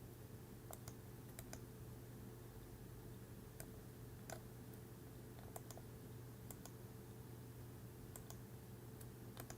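Faint, irregular clicks of someone working a computer's mouse and keys, over a steady low electrical hum.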